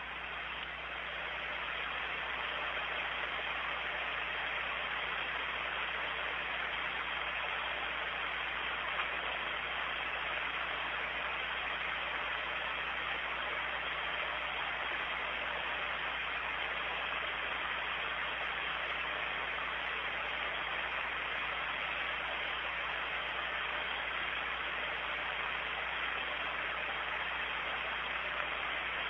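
Steady hiss of radio static on an open, narrow-band communications channel, with a low hum underneath.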